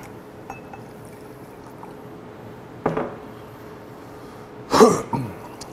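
Soju poured from a bottle into a drinking glass, then beer glugging out of a tipped beer bottle into the same glass to make somaek. The loudest glugs come about five seconds in, after a shorter burst about three seconds in.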